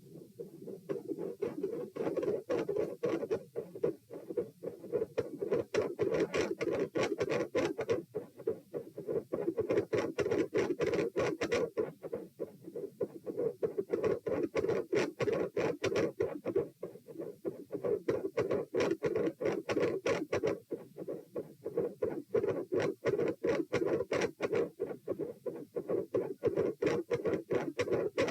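Heartbeat heard through a chest recording at the pulmonic auscultation point, a fast, dense run of lub-dub beats. Loudness changes abruptly from beat to beat.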